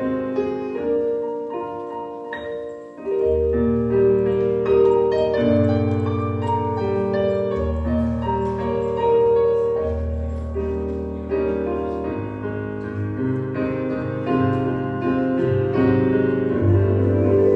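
Solo piano playing a slow piece, chords over sustained low bass notes.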